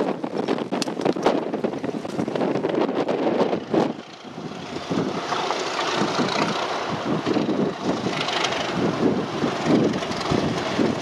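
Wind buffeting the microphone, then from about four seconds in the steadily rising sound of an approaching train hauled by a pair of Class 37 diesel locomotives: the running of their English Electric V12 engines and the rumble of wheels on the rails, growing louder.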